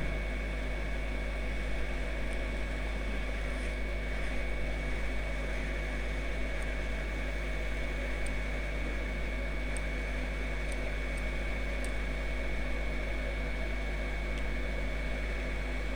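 Hot air rework gun blowing steadily: an even rushing hiss over a low hum, with a thin high whine that holds throughout.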